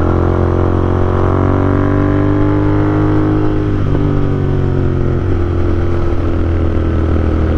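Royal Enfield Interceptor 650's parallel-twin engine running while the motorcycle is ridden, its pitch climbing slightly over the first couple of seconds and then easing off, over steady wind and road noise.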